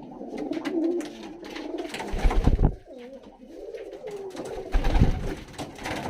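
Domestic pigeons cooing repeatedly, low and wavering, with a couple of dull thumps about two and five seconds in.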